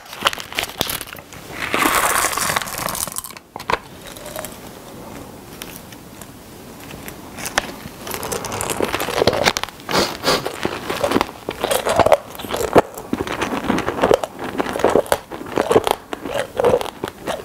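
A plastic candy wrapper crinkling and tearing open, then candies crunched and chewed loudly close to the microphone from about halfway through.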